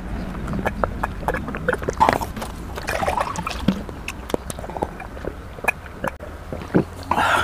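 A person drinking water from a glass close to the microphone: gulps and swallows with many small wet mouth clicks, in two spells of drinking.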